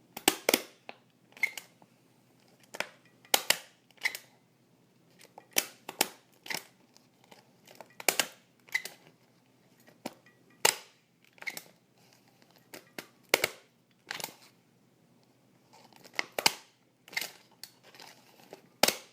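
Common office stapler stapling papers again and again: sharp metallic snaps, often in quick pairs, about one stapling every second or so at an uneven pace.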